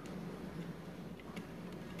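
Faint, scattered clicks and light handling noise of hands working with desk cables, over a low steady hum.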